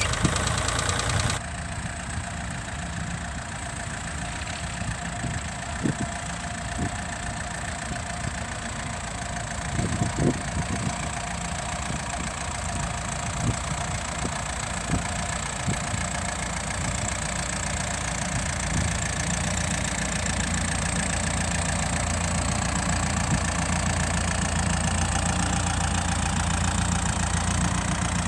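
Engine idling steadily, with a few scattered sharp knocks.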